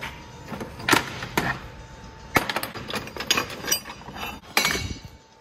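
Steel hold-down clamps being loosened and handled on a steel welding fixture table: a string of sharp metal clanks and clinks, several of them ringing briefly.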